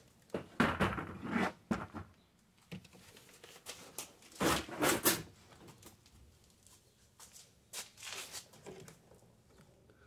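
Intermittent rustling and scraping handling noises in a few short bursts, with scattered light clicks.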